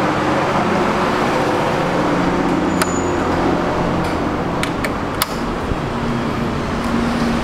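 Steady background rumble and hiss like street traffic, with a few sharp clicks around the middle from metal cable connectors being handled at the amplifier's back panel.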